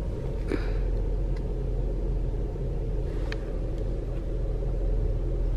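Steady low rumble of a car heard from inside the cabin, the engine running. A brief faint rustle comes about half a second in, and a light tick a little past three seconds.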